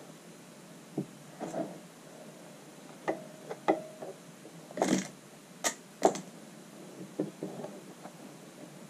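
Fabric being handled and pinned by hand: short rustles and light taps and clicks, scattered irregularly, the loudest about five to six seconds in.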